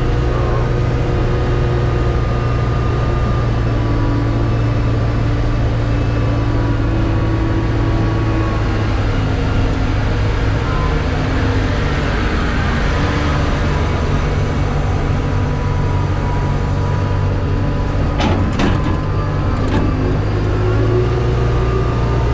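Diesel truck engine running steadily as the truck is driven, its pitch shifting a couple of times as the engine speed changes. A few sharp clicks or knocks come through about two-thirds of the way in.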